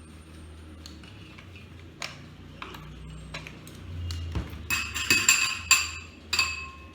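A metal utensil stirring and clinking in a bowl while the butter, oil, egg and sour curd mixture is being whisked. Soft scraping and an odd knock come first, then about two-thirds of the way in a quick run of loud, ringing clinks.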